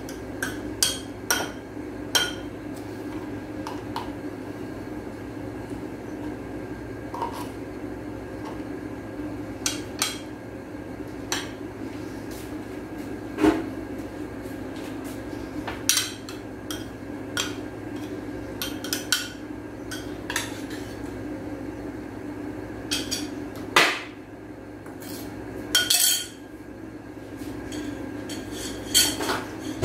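A metal spoon clinking and knocking against a glass mixing bowl and a cream tub while scooping firm cream: scattered sharp clinks every second or two, some in quick pairs, over a steady low hum.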